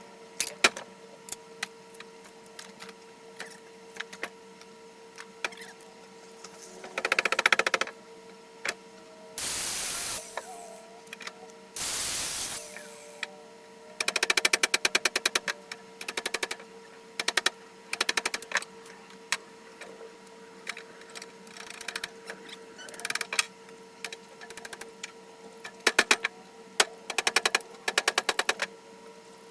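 Air-over-hydraulic press pump chattering in rapid runs of clicks, started and stopped again and again, with two short bursts of hissing air in the middle.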